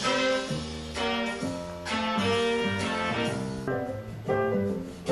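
Background music: an instrumental led by plucked guitar chords, with a new chord struck about once a second.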